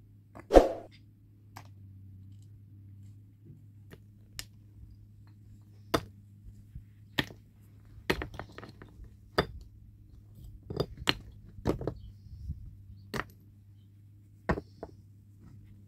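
Irregular sharp clinks and knocks of hard objects striking one another, about a dozen, the loudest about half a second in, over a faint steady low hum.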